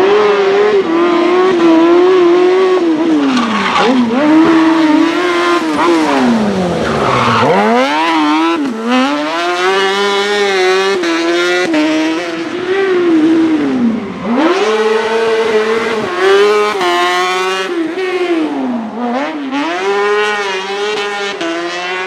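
Honda 600cc motorcycle engine in a Piaggio Ape Car Proto, revving hard and dropping back over and over as it accelerates and brakes between cones. Tyres squeal at times.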